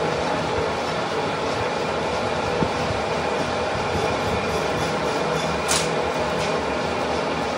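Manual metal lathe running, a steady mechanical hum and rattle. A single brief sharp clink comes about three-quarters of the way through.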